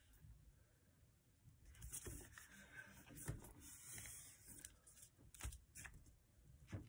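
Faint rustling and crinkling of a sheet of paper being handled and creased by hand, with a few soft taps.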